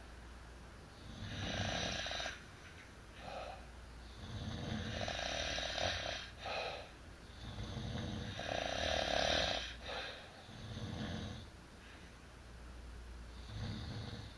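Sleepers snoring, a rough snore about every two seconds, some longer and stronger than others.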